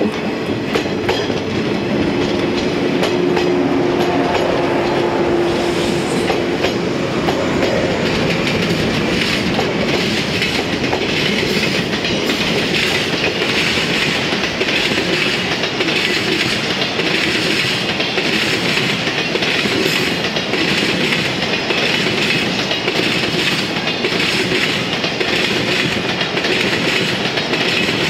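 Container freight wagons rolling past: a steady rumble with rhythmic clickety-clack of the wheels over the rail joints.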